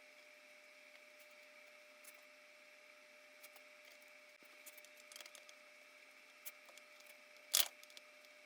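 Faint, scattered small clicks and taps of hand work on a portable bandsaw's screws and parts, with one sharper click near the end, over a faint steady hum.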